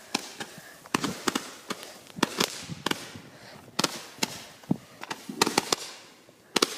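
Small fireworks going off in a rapid series of sharp pops and cracks, grouped in little clusters about every second and a half, with a fading hiss after some of them.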